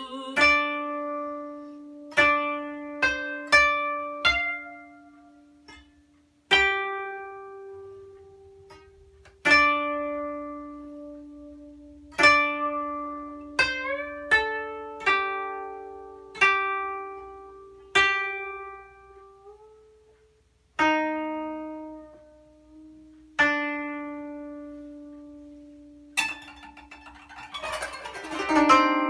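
Solo 13-string koto played with plucking picks: single notes and short groups ring out and fade, a second or two apart. A few notes are bent upward in pitch by pressing the string, and near the end comes a quick dense rush of sound across the strings.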